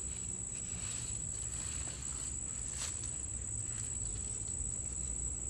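Insects, crickets by the sound, trilling as one steady high-pitched tone that never breaks, with a single sharp click a little before the middle.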